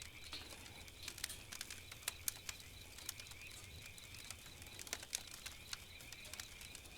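Wood fire crackling faintly, with irregular small pops over a faint steady high hiss.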